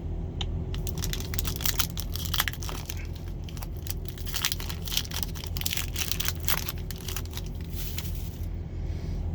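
Pokémon booster pack's foil wrapper being torn open and crinkled by hand: a run of irregular sharp crackles and crunches. A steady low hum runs underneath.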